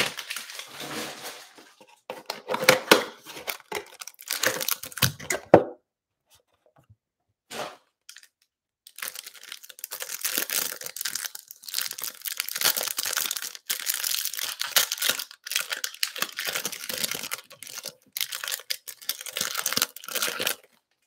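Plastic wrapping on a box of trading cards being torn open and crinkled by hand, in rustling bursts. After a pause of about three seconds, the crinkling of pack wrappers goes on almost without a break as the cards are unwrapped.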